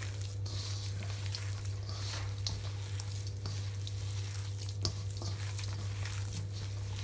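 Hand kneading and squishing raw beef mince in a stainless-steel bowl: irregular wet squelching with small ticks, over a steady low hum.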